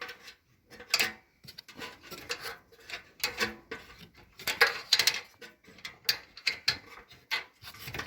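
Small clicks and scrapes of metal parts being handled as the ignition electrode is worked back into its socket on the water heater's pilot assembly.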